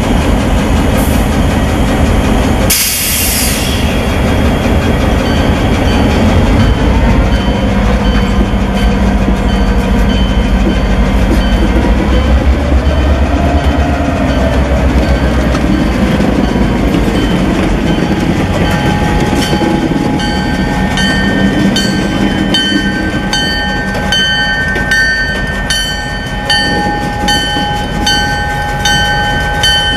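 Two EMD GP38-2 diesel switching locomotives rolling slowly past, their non-turbocharged 16-cylinder engines throbbing, locomotives in poor, worn condition. A short loud hiss sounds about three seconds in, and in the second half a bell starts ringing with regular strikes as they move off.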